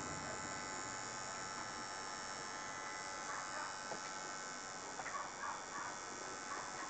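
Electric tattoo machine buzzing steadily as its needle inks the skin of a forearm.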